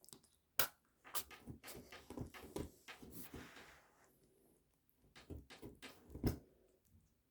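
Kitten licking and smacking food paste, a run of faint wet clicks and smacks with a short rustle of handling midway.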